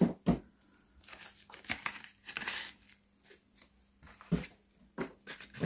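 Paper and plastic packets rustling and crinkling now and then as they are handled, with a few sharp little clicks and taps of small plastic pots on a desk.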